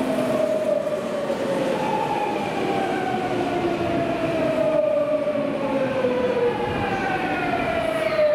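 Tokyu electric commuter train running through the station and slowing, its motor whine made of several tones that slide steadily down in pitch as it brakes, over the rumble of the wheels on the rails.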